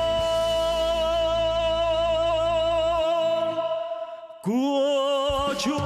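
A male singer holds the long final note of a song over band accompaniment, and the backing fades out a few seconds in. After a brief gap, a new held note with wide vibrato starts.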